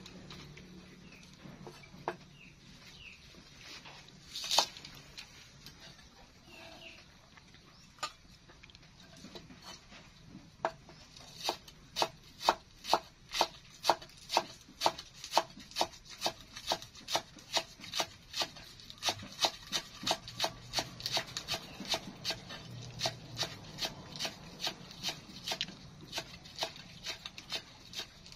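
Cleaver chopping green onions on a round wooden chopping block. There are a few scattered cuts and one louder knock at first, then steady chopping at about two strokes a second from about eleven seconds in.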